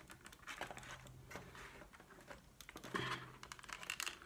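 Small clicks and scratches of fingers prying at the plastic speedometer needle of an Audi instrument cluster, working the pointer off its spindle. The loudest scratching comes about three seconds in.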